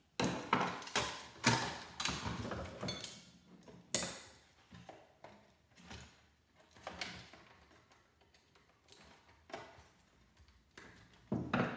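Clicks, knocks and rattles of a portable CD-cassette player's cassette deck mechanism being worked loose by hand from its plastic housing. The clatter is busiest in the first few seconds, then thins to a few scattered knocks.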